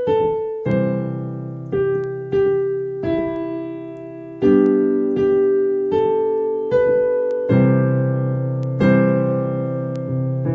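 Piano played slowly by a beginner: a simple melody of single notes struck about every half second to a second, each left to fade, over held chords in the bass.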